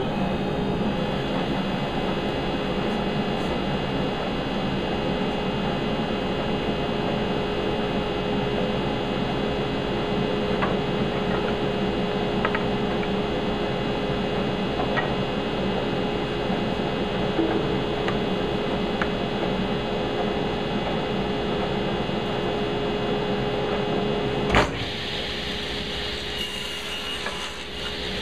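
Electric power saw motor spinning up and running steadily while cutting pine scrap to length, with a few faint ticks. About 25 seconds in a sharp click, after which the running sound changes and is a little quieter.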